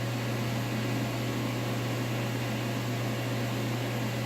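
Steady low electrical hum with a fan-like hiss from a powered-up Fadal CNC vertical machining center standing idle, holding an even level throughout.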